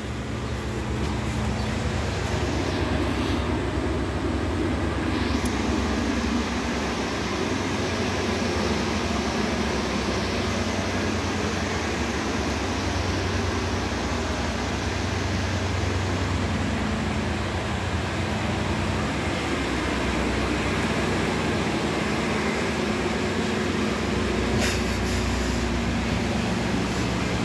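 Cabin noise inside an Iveco Urbanway 18 articulated natural-gas bus: a steady hum and rumble of its engine and running gear, with a short click near the end.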